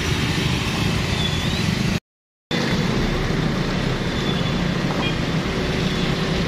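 Car and motorcycle engines running in a slow, crawling traffic jam, a steady hum under a constant noise haze. The sound cuts out completely for about half a second about two seconds in.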